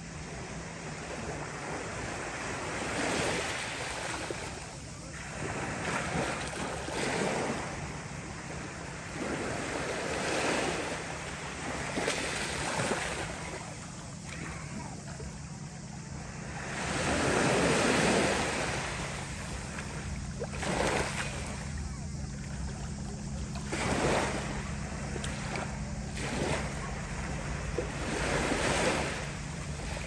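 Small waves of a calm sea lapping onto a pebble-and-sand shore, each wash swelling and falling back every few seconds, the biggest one about halfway through. A steady low hum runs underneath.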